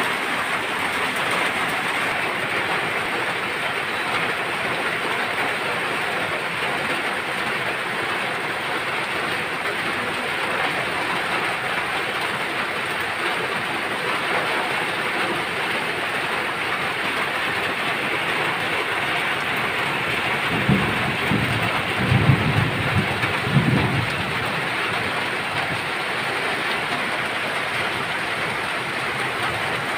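Steady rain falling on a dirt yard and nearby tin roofs, an even hiss. For a few seconds about two-thirds of the way through, a low rumble rises over it.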